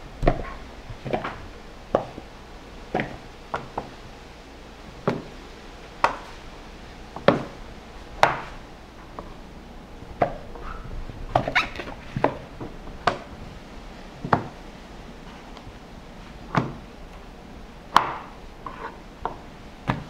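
Knife cutting bammy into wedges on a plastic cutting board: sharp, short knocks, unevenly spaced at about one a second, a few of them louder.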